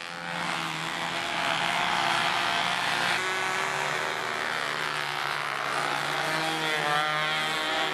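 Engines of several Bi-Slob control-line model biplanes running together at full power, a steady high buzz whose pitches rise and fall as the planes circle.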